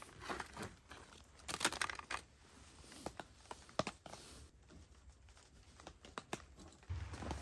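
Hands rummaging through fishing tackle: small clicks and rattles of lures in a clear plastic tackle box, with brief plastic rustling, the densest about two seconds in. A low steady rumble comes in just before the end.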